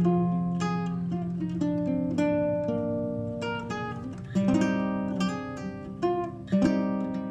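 Background music on acoustic guitar: plucked notes and strummed chords that start sharply and ring out, a strong new chord about every two seconds.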